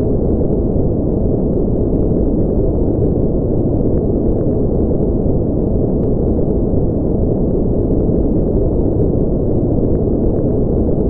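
A steady, deep rumbling noise that stays even in level throughout, with no tone or rhythm in it.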